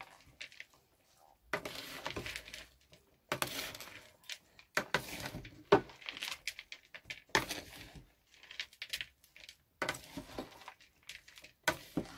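A salad of blanched cabbage, boiled egg and crushed peanuts tossed with a spatula and a second utensil in a plastic bowl. There are irregular strokes about every second or two: bursts of rustling leaves with clicks and clinks of the utensils against the bowl.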